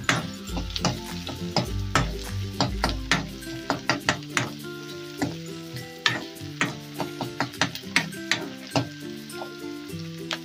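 Chopped onions sizzling in hot oil in a kadai while a steel spoon stirs them, with frequent sharp scrapes and clicks of the spoon against the pan.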